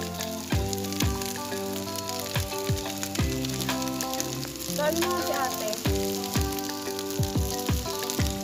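Background music with held synth chords and a deep kick-drum beat, over a steady sizzle of sinangag (garlic fried rice) being stir-fried in a wok.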